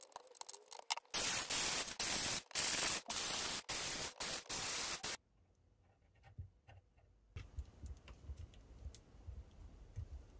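Static-like hiss that cuts in and out in short blocks for about five seconds, then stops dead; after a silent gap come faint clicks and low knocks of handling.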